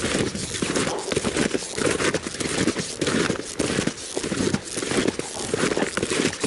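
Snowshoes crunching on packed snow at a steady walking pace, one crunch roughly every half second.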